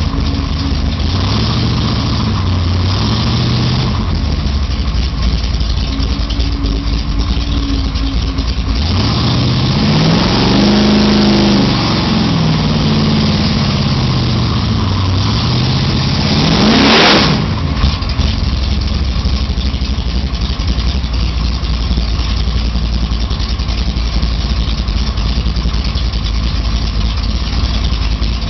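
Chevrolet Nova's engine heard from inside the cabin while driving: steady low running, then a rise in pitch as it accelerates about nine seconds in and a slow fall as it eases off. A second, quicker rev climbs steeply to a brief loud burst around seventeen seconds, after which the engine settles back to steady low running.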